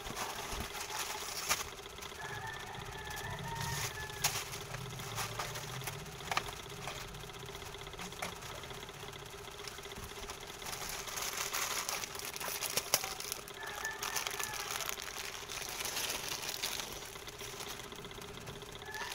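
Packaged goods being handled and lifted out of a cardboard box: scattered light knocks and clicks and short stretches of plastic wrappers rustling, over a steady hum.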